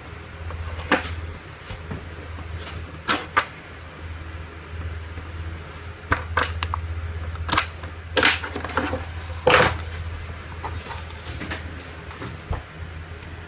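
Handling noises from a power bank and its packaging: irregular clicks, taps and light knocks with small rustles, over a steady low hum.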